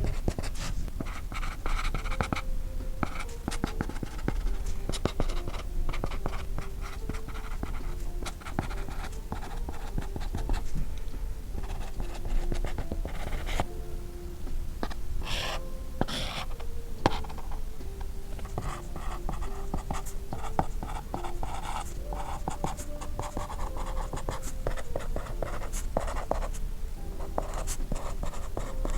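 Apple Pencil tip writing on an iPad covered with a Paperlike matte screen protector. It makes a continuous run of short scratchy strokes and taps, much like pencil on paper.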